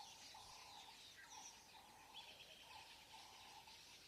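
Near silence: faint natural ambience with a few soft bird chirps.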